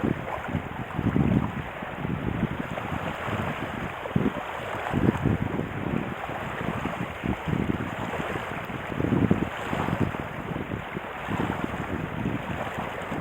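Wind buffeting the microphone in irregular low gusts, over a steady rush of water, as a kiteboard moves across a lake.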